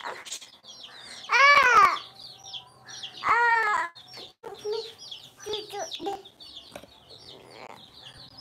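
Chicks peeping with many short high chirps, while a young child cries out loudly twice in drawn-out wavering wails.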